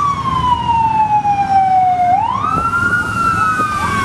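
Fire-engine siren wailing: a tone falls slowly, then sweeps quickly back up about two seconds in, and further wails overlap after that.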